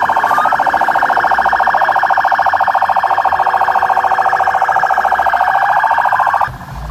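Electronic vehicle siren with a rapid pulsing warble and a rising wail, cutting off suddenly near the end.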